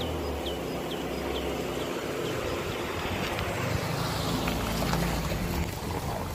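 Lada Samara's carburetted four-cylinder engine running just after a cold start, its choke set by hand. A faint high chirp repeats about twice a second and fades out about three seconds in.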